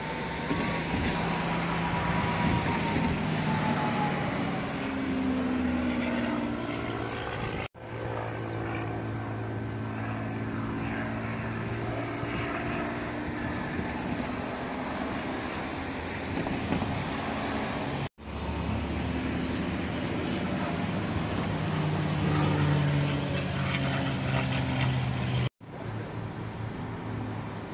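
An aircraft engine droning overhead, its pitch gliding down as it passes, with the sound breaking off abruptly three times.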